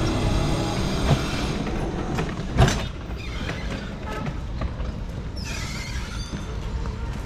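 Cycle rickshaw rolling along a street, its frame and wheels rattling steadily over the road, with one sharp knock about two and a half seconds in. A couple of short high-pitched squeaks come near the end.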